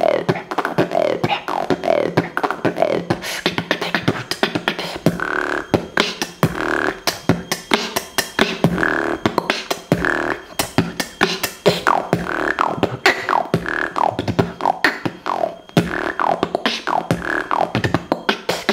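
Solo human beatboxing: rapid mouth-made drum hits and clicks in a steady rhythm, layered with hummed and sung tones that often slide downward in pitch.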